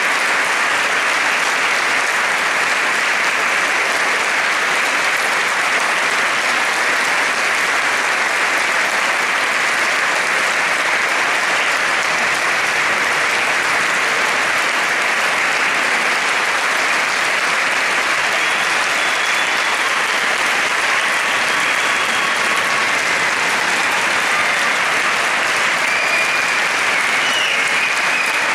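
Large audience applauding steadily after an orchestral performance, with dense, even clapping that neither builds nor fades.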